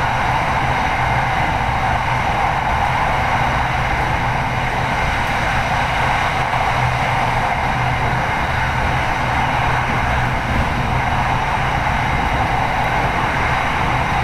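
Steady running noise of an SRT Red Line electric commuter train at speed, heard from inside the car, with a low hum underneath and no letup.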